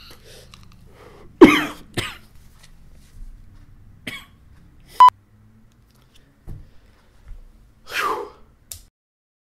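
A man coughs sharply once about a second and a half in. A short electronic beep follows about five seconds in, and near the end comes a brief breathy vocal burst.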